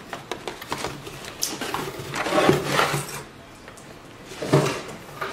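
Packaging being handled: a boxed microphone pulled out of a cardboard shipping box and set down on a desk, with rustling, rubbing and light knocks of cardboard, loudest in two swells about two and a half and four and a half seconds in.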